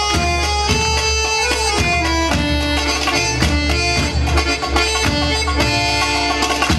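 Greek folk dance music: a wind instrument carries a moving melody over a steady low bass and an even beat.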